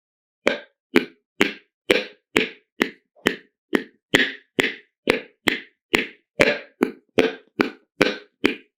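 Whitetail buck pops and clicks, the tending call of a buck chasing a doe in heat: sharp, hollow clicks repeating evenly a little over twice a second, starting about half a second in.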